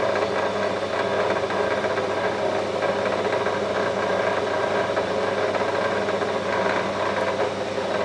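Scrap wire stripping machine driven by a 1 HP electric motor, running steadily with a constant hum.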